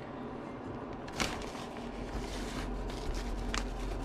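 Plastic zipper bag rustling and crinkling as a hand digs through flour for coated fish chunks, with two sharp crinkles, one just over a second in and one near the end, over a low steady hum.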